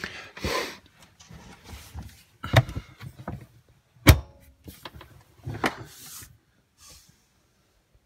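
A wooden camper cupboard door being handled and shut: scattered knocks and rustles, and one sharp latch click about four seconds in, the loudest sound.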